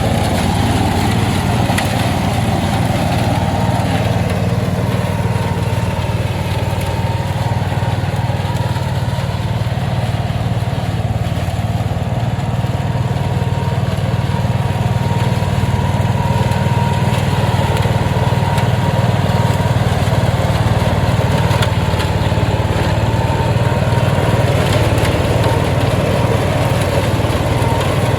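Petrol-engined flail mower running steadily, engine and flail rotor giving a constant drone with a thin steady whine above it.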